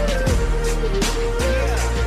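Hip-hop backing music, an instrumental stretch: a steady beat with heavy bass and regular drum hits under a held melody line.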